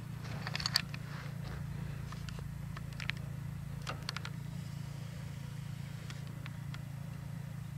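Toyota Tacoma pickup's engine running steadily as a low hum, with a few faint scattered clicks.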